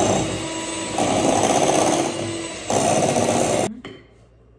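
Electric hand mixer running, its beaters creaming butter and sugar in a glass bowl; the motor cuts off suddenly about three and a half seconds in.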